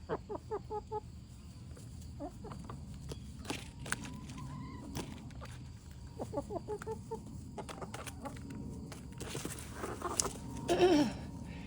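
Chickens clucking in short runs of quick calls, with a louder call falling in pitch near the end, among scattered sharp clicks.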